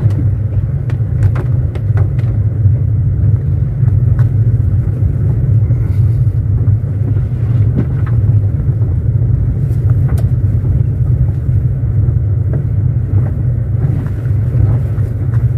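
Car driving on a wet gravel road, heard from inside the cabin: a steady low rumble of engine and tyres, with scattered light clicks.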